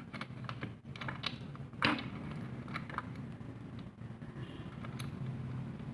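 Irregular light clicks and scrapes of a utility knife and small hand tools working on the outer jacket of a microphone cable, with one sharper click about two seconds in.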